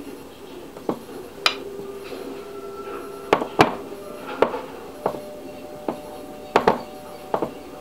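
A small baking dish knocking and clinking against a countertop about ten times as biscuit dough is pressed and crimped over it, with quiet background music holding steady notes underneath.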